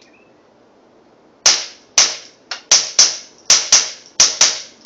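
Suppressed Ruger .22 pistol firing subsonic .22 rounds: about ten quick shots in a row, starting about a second and a half in. Each shot is a sharp pop with a short ringing tail.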